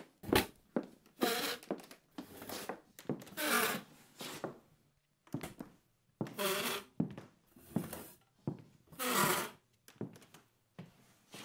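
A run of irregular knocks and thuds, with several longer scraping or rustling noises of about half a second each in between, in a small room.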